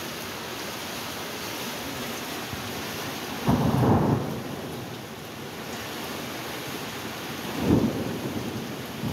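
Steady hiss of heavy rain and floodwater running down a flooded street, broken by two brief, louder low rumbles, one about three and a half seconds in and one near the end.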